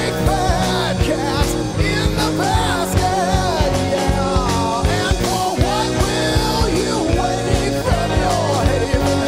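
Rock music: a full band with a steady drum beat and bass under a wavering, bending lead melody line.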